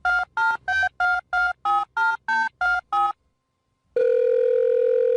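Touch-tone telephone keypad dialling a number: about ten quick two-tone beeps, one every third of a second. About a second later a steady line tone starts and holds.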